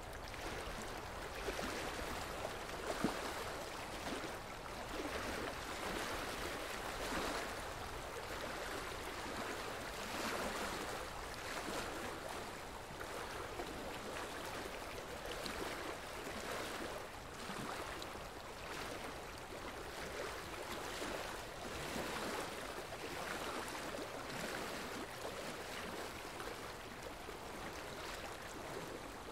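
Running water, a steady rushing stream sound with gentle swells every second or two.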